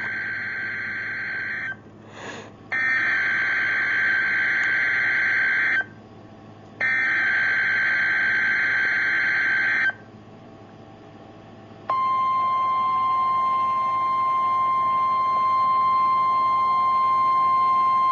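Emergency Alert System SAME header from a NOAA Weather Radio broadcast: three warbling digital data bursts of about three seconds each, about a second apart. About twelve seconds in, the steady single-pitch weather radio alert tone begins.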